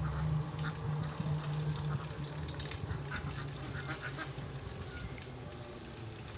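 Domestic ducks quacking intermittently while foraging, short scattered calls, over a low steady hum in the first two seconds that then fades.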